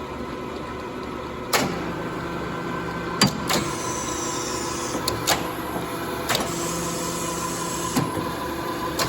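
Amada HA250W horizontal bandsaw cycling its clamp vises: a steady hydraulic hum with a sharp clunk every second or two as the clamp advances, opens and closes. Twice a deeper tone joins the hum for a second or so while the cylinders move.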